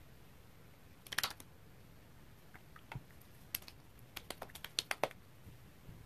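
Fingertips patting and tapping toner into the skin of the face, making light, sharp taps. There is a quick flurry of taps about a second in, then scattered single taps over the next few seconds.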